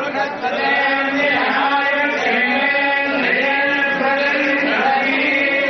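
Men's voices chanting Hindu wedding mantras in long held notes that step up and down in pitch, over a murmur of crowd voices.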